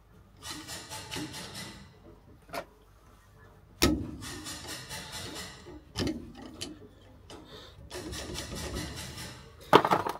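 Hand-tool work on a van's rear brake: three bursts of rapid clicking, with a few sharp metal knocks between them.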